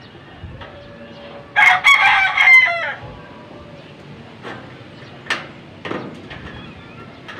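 A rooster crowing once, about a second and a half in: one loud call with a falling tail, the loudest sound here. A few sharp knocks follow later.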